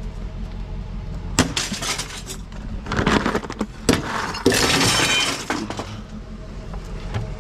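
Junk clattering as it is picked through, several sharp knocks, then a crash of shattering glass about four and a half seconds in, lasting about a second with a brief ringing.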